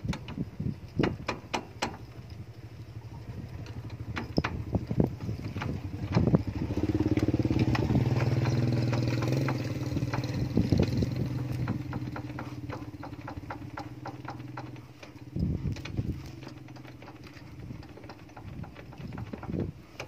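Scattered mechanical clicks as the kick starter of a Kawasaki Barako is pressed gently, inching the plugless engine toward top dead center. From about six seconds in, a motorcycle engine hum swells to become the loudest sound, then fades over several seconds.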